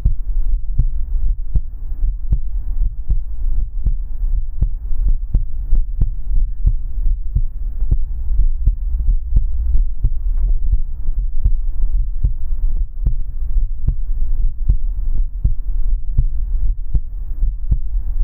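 Recorded human heartbeat: a steady run of short low beats over a constant deep hum.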